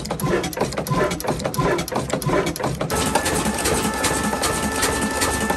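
A 22 HP black oil engine, an old slow-running single-cylinder diesel, running steadily. Its moving parts clatter in an even rhythm of about four knocks a second. About three seconds in the sound turns brighter and hissier, with a steady high whine over the same knocking.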